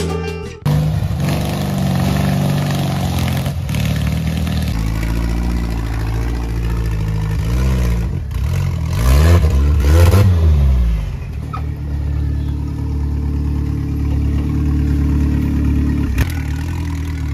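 Off-road tube-frame buggy's engine revving as it climbs a steep, rutted dirt trail, the engine speed rising and falling, loudest in a hard surge of revs about nine to eleven seconds in.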